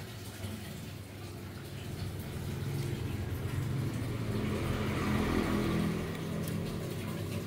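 A steady low hum with hiss, joined by a motor-vehicle-like sound that swells to a peak about five seconds in and then fades away, like a vehicle passing by.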